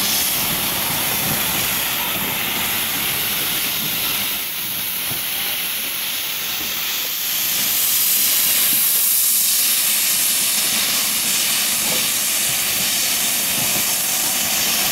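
LMS Stanier Class 8F steam locomotive hissing steam steadily as it moves slowly past. The hiss grows louder about halfway through.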